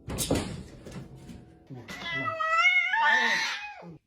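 A domestic cat giving one long, drawn-out meow with a wavering pitch, starting about halfway in, after a stretch of noisy rustling.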